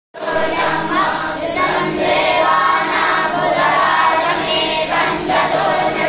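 A group of young boys (batuks) reciting Vedic mantras in unison: many children's voices chanting together in a steady stream.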